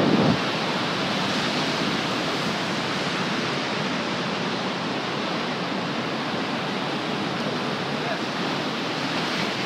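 Steady rushing wash of ocean surf, an even hiss without breaks.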